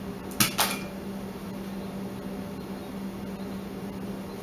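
Two quick sharp clicks close together about half a second in, as upholstery fabric is twisted and pulled tight over a chair seat by hand, over a steady low hum.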